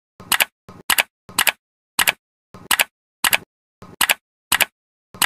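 Crisp ticking sound effect, about two clicks a second, many of them a quick double tick, with dead silence between: added footstep sounds for a small stop-motion figure walking.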